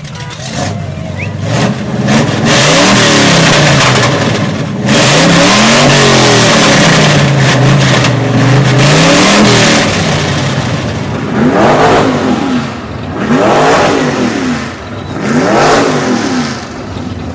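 Car engine revved hard again and again, its pitch sweeping up and falling back, then three short, separate blips of the throttle near the end.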